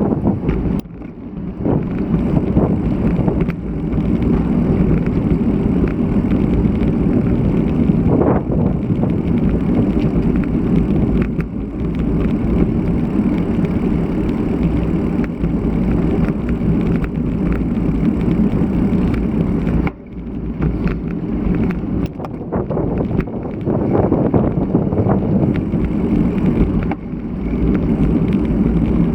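Riding a road bike: a steady, loud rumble of wind on the action camera's microphone and tyres on the road. It dips briefly about a second in and again about 20 seconds in.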